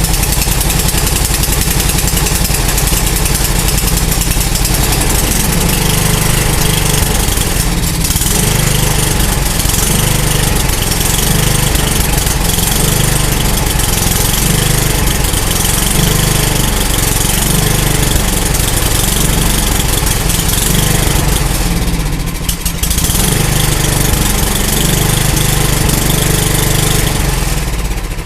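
Small gasoline engine of an older yard machine running loud and steady just after a cold start, dipping briefly about eight seconds in and again past twenty seconds. The sound falls away at the end.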